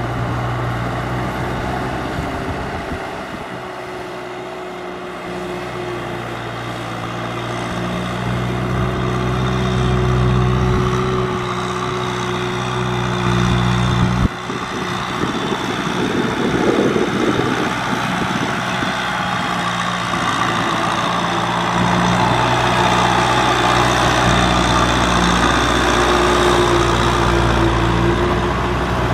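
Kubota M6040SU tractor's diesel engine running steadily under load while it drives a rotary cultivator through wet paddy mud. It grows louder a few seconds in, and the sound changes abruptly about halfway through.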